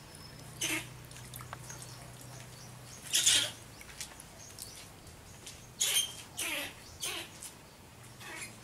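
Water splashing in a plastic tub as a young macaque swims and shifts about: several short splashes, the loudest about three seconds in.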